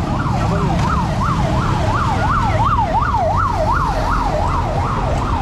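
Emergency vehicle siren in a fast yelp, its pitch sweeping up and down about three times a second and fading near the end, over a low traffic rumble.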